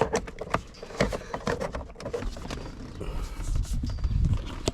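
Hard plastic clicking and knocking as the upper steering-column trim cover is wiggled and worked loose from its locking tabs, with a stretch of low rustling handling noise near the end.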